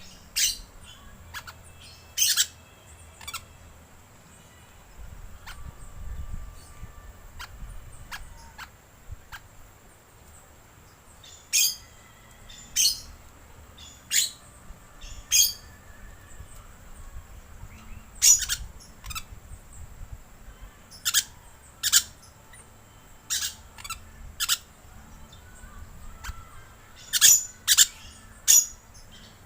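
Green lorikeets giving short, sharp, high-pitched screeching calls, irregularly spaced, some in quick pairs and clusters.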